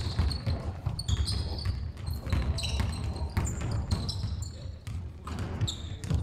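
Pickup basketball on an indoor sports-hall floor: sneakers squeaking sharply in short repeated chirps as players cut and stop, with footfalls and the ball bouncing, echoing in the hall.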